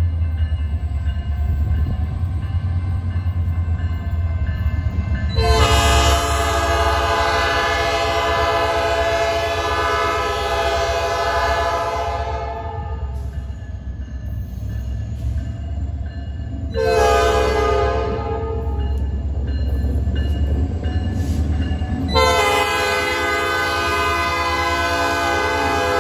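Norfolk Southern diesel locomotive sounding its horn: a long blast starting about five seconds in and lasting some seven seconds, a short blast near the two-thirds mark, then another long blast near the end. Underneath is the steady low rumble of the diesel engines as the locomotives approach.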